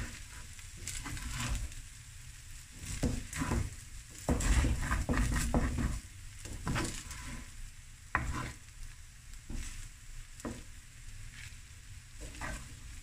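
Fried rice with sausage pieces sizzling in a hot pan while a spatula stirs and scrapes it in irregular strokes, about one a second. There is a louder, heavier stretch of stirring with a low rumble from about four to six seconds in.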